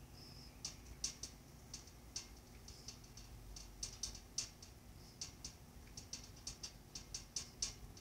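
Faint, irregular light clicks, a few a second, over a low steady hum.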